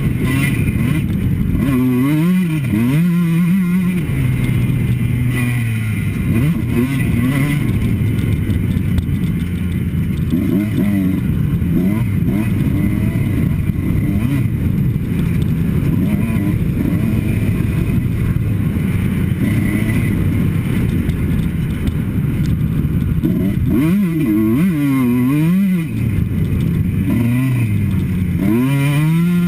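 Kawasaki KX two-stroke motocross bike engine revving up and falling back again and again as it is ridden hard through the gears, heard from a helmet camera with wind noise.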